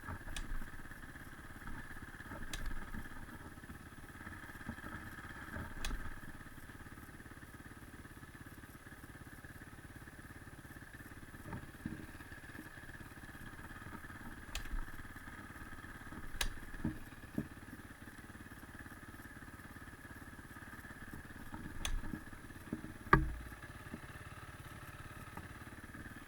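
A dirt bike engine running steadily at idle, heard at some distance, with scattered clicks and knocks on top; one sharper knock near the end is the loudest thing.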